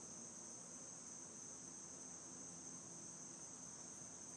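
Near silence, with a faint steady high-pitched tone in the background.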